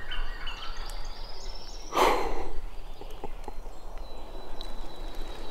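A person's single short, breathy exhale close to the microphone about two seconds in, over faint outdoor background with a thin steady high tone.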